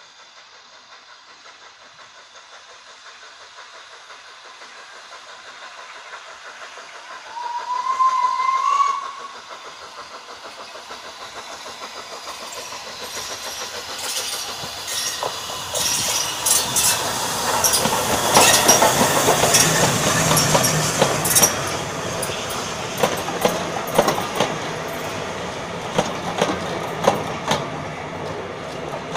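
Flying Scotsman, an LNER A3 Pacific steam locomotive, approaching and passing close by with its train. It gives one short whistle blast about seven seconds in. Its sound then grows to its loudest as the engine goes past, and the coaches follow with their wheels clicking over the rail joints.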